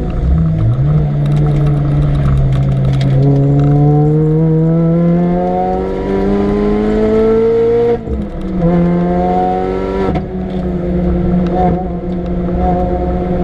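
Supercharged 1.6-litre four-cylinder engine of a tuned Mini Cooper R53 on track, pulling hard with its revs climbing steadily for several seconds. It shifts up with a sharp drop in revs about eight seconds in, climbs again, dips briefly once more, then holds high revs.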